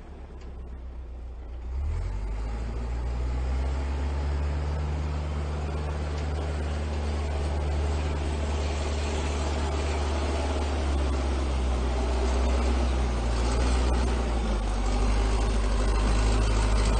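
A vehicle engine running steadily at a low pitch. Its note steps up about two seconds in and then grows gradually louder.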